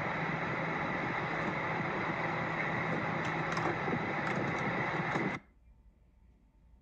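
Steady blower noise with a low hum from a ventilated cage-changing cabinet, with a few light plastic clicks as a mouse cage lid is handled; the noise stops suddenly about five seconds in.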